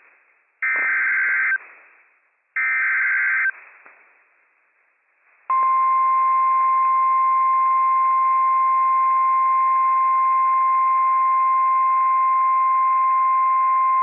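NOAA Weather Radio Emergency Alert System activation: the last two of the three SAME digital header bursts, each about a second long and a second apart. After a short pause, the steady 1050 Hz weather radio warning alarm tone starts about five and a half seconds in, signalling that a warning, here a flash flood warning, follows.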